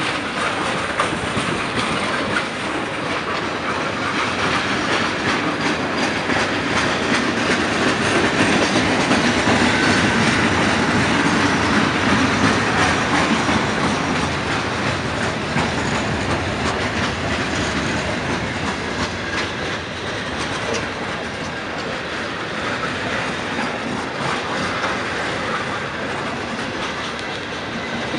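Freight cars, tank cars and boxcars, rolling past close by: steel wheels clicking and clattering over the track in a steady, continuous run, without a locomotive's engine.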